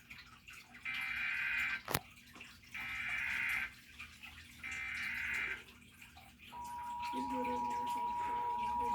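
Emergency Alert System SAME header over weather radio: three short bursts of digital data warble, each about a second long, with a sharp click between the first two. About six and a half seconds in, a steady alert tone starts and holds, marking the start of an alert message. Radio hiss runs underneath.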